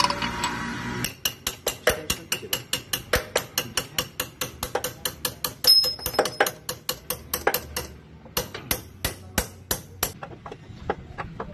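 A steady run of sharp metallic clicks or taps, about four a second, from hand tools at work on a car engine with its cylinder head removed. About halfway through comes one louder clank with a short ring, and the clicks thin out near the end.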